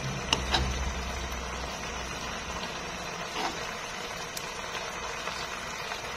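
Chicken legs simmering in sauce in a nonstick pan: a steady simmering hiss, with a few light clicks as a spoon ladles the sauce over the skin. A low hum runs underneath for the first three seconds or so.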